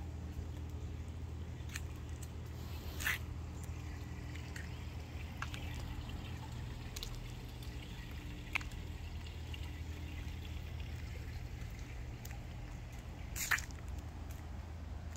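Steady low machine hum, with a few short clicks and ticks about three, eight and a half and thirteen and a half seconds in.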